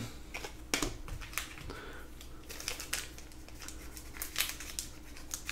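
Trading cards and their foil pack wrappers being handled: quiet crinkling with scattered sharp little clicks as cards are slid and flipped.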